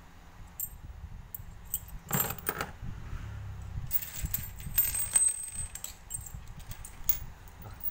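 Steel screwdriver bits clinking against each other and being set down on a plastic case: a couple of clicks about two seconds in, then a quick run of clinks around the middle.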